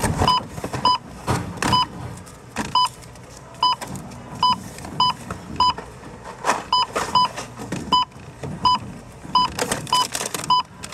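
Supermarket checkout barcode scanner beeping again and again as items are passed over it: short beeps on one pitch, irregularly spaced, about one or two a second. Between the beeps come brief knocks and rustles of goods being handled.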